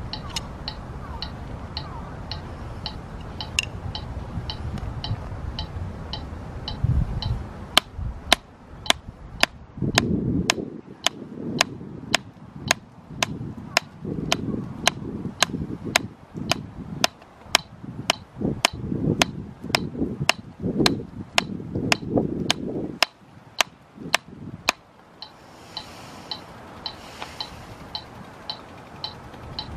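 A metronome ticking at 110 beats per minute. From about eight seconds in, a drumstick strikes a drum practice pad once per beat in time with it, sharp even taps, until a few seconds before the end, when the metronome is left ticking alone.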